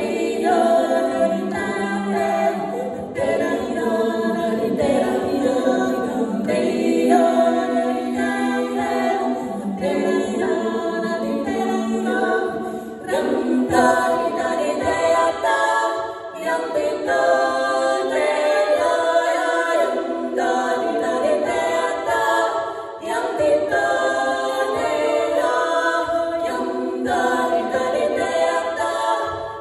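Female vocal quartet singing a cappella in close four-part harmony: a Norwegian springdans folk-dance tune, with brief breaks between phrases.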